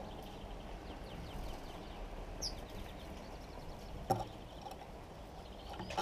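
House sparrows chirping in short, faint series over a steady outdoor background hum, with one sharper high chirp about two and a half seconds in. Two sharp knocks, about four seconds in and at the end, as a sparrow lands on or takes off from the feeding dish with wings flapping.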